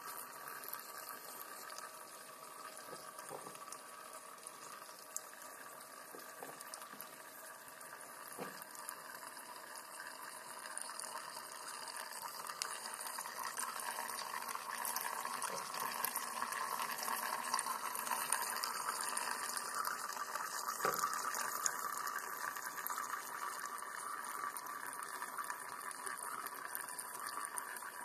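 Steady trickling and bubbling of liquid at a rakia still with a copper condenser coil, where freshly distilled rakia runs out of the spout cup. It grows louder around the middle and eases off near the end.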